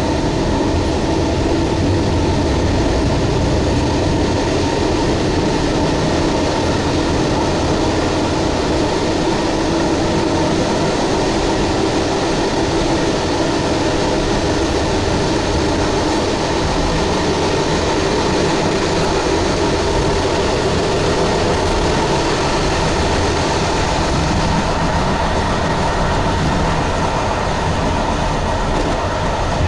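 Train running at speed, heard from inside the locomotive's cab: a steady rumble of wheels on rail and the locomotive's running noise at an even level.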